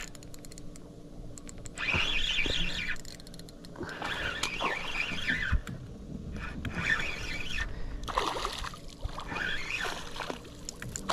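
Water splashing and sloshing in repeated bursts at the side of a small boat, with a few faint ticks in the first second or so.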